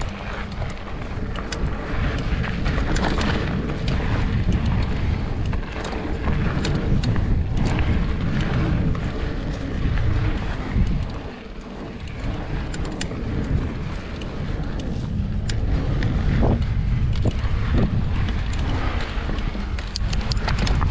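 Wind buffeting the microphone while a Trek Slash 7 mountain bike rolls along a dirt trail, with scattered sharp clicks and rattles from the tyres and bike. The rumble eases briefly a little past halfway.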